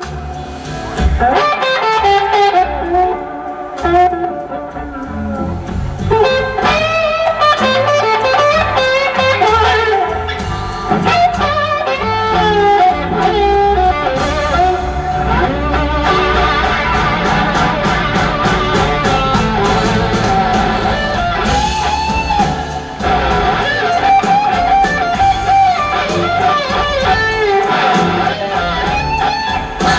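Live blues-rock band playing: an electric guitar lead with gliding, wavering notes over drums and bass.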